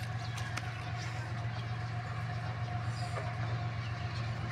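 Diesel locomotive approaching: a steady low engine drone with a faint, steady whine above it.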